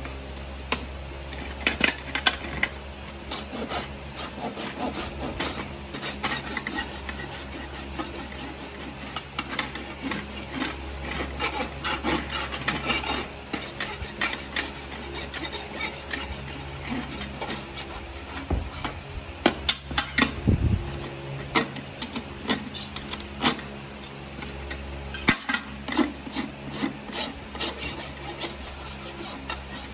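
Farrier's hoof rasp scraping in repeated, uneven strokes across the outer wall of a horse's shod hoof resting on a hoof stand, as the hoof is finished off around the shoe.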